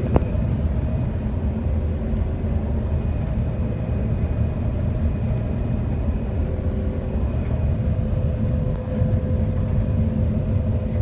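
Large diesel farm machine running steadily under load, a dense low rumble with a steady whine, and a single sharp click just after the start.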